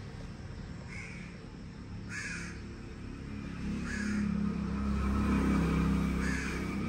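A bird calling over and over, short harsh calls about once a second. A low steady hum grows louder about halfway through.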